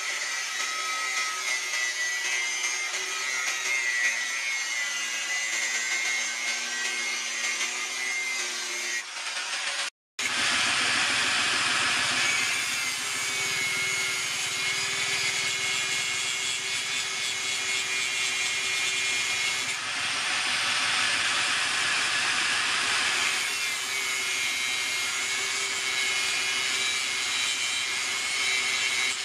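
Angle grinder with a thin cutting disc cutting into rusty steel: a steady high whine over harsh grinding noise. It cuts out suddenly for a moment about a third of the way through, then carries on.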